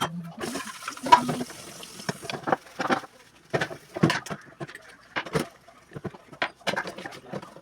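Kitchen work: a tap runs for about two seconds, with irregular clicks and knocks of kitchenware throughout.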